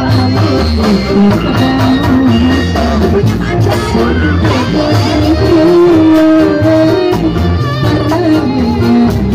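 Loud amplified reog folk music from Indramayu: a sung melody over a steady drum beat, playing without a break.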